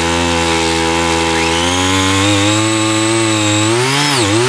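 The small 3.3 hp engine of a mini power tiller runs at high throttle while its rotary tines dig into the soil. Near the end the engine speed sags briefly and picks back up.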